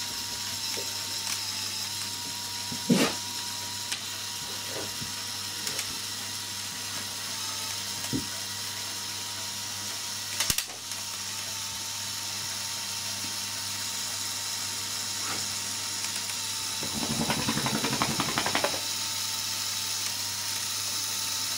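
Lego Technic logging truck's single electric motor and plastic gear train running the boom arm, with a few separate clicks. Near the end come about two seconds of rapid gear ratcheting.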